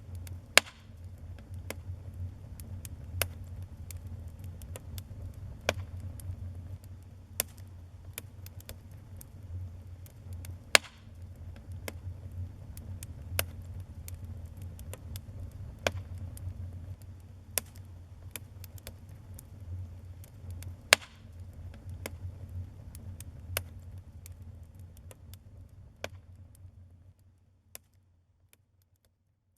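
Wood fire crackling in a fireplace: a steady low rumble of the flames with irregular sharp pops and snaps a second or two apart, fading out near the end.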